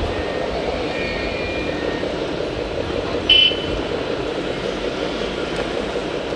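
Steady mechanical hum of RC model trucks and machines at work, with one short high-pitched beep about halfway through.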